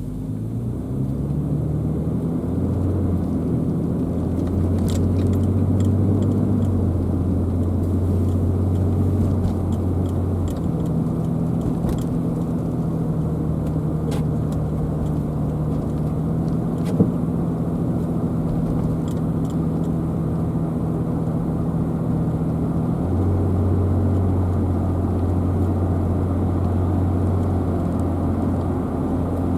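A car driving on the road: steady engine and tyre noise with a low drone, picking up speed in the first couple of seconds. The drone's pitch shifts about ten seconds in and shifts back a little after twenty seconds.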